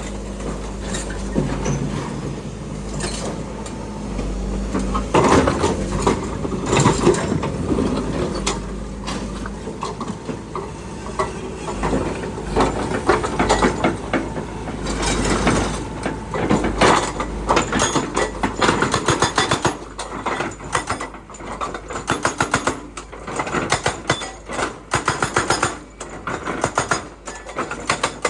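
Hitachi Landy excavator's engine running, with repeated metallic clanks and knocks that grow denser and sharper through the second half.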